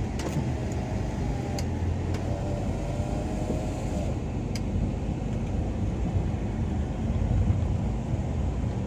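An engine running steadily with a low hum, with a few sharp clicks in the first half.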